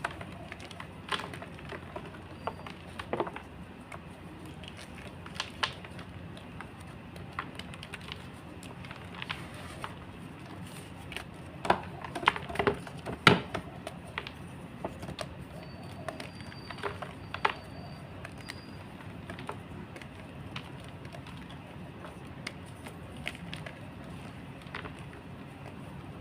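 Big blocks of gym chalk being crushed and crumbled, giving irregular sharp crunches and cracks that come thickest about halfway through.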